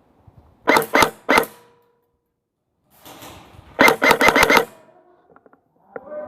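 Airsoft gun firing: three quick shots about a second in, then a rapid burst of about six shots around four seconds in.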